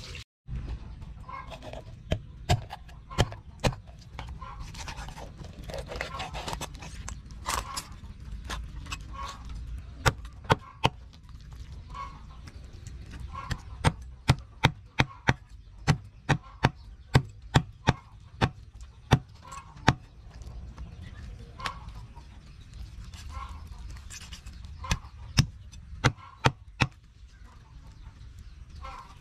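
Cleaver chopping a raw chicken on a thick wooden chopping block: sharp knocks, scattered at first, then a fast run of blows in the middle and a few more near the end. Short repeated calls, like hens clucking, sound in the background.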